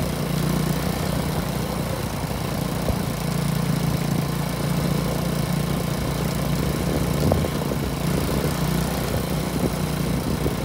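A small engine running steadily at an even speed, with no change in pitch.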